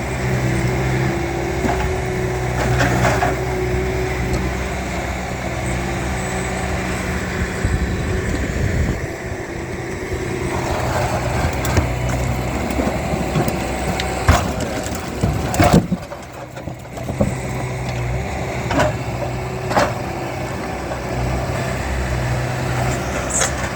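Heavy equipment's engine running steadily under load, with scattered sharp cracks and thuds as slabs of old concrete are lifted and dropped to break them into chunks.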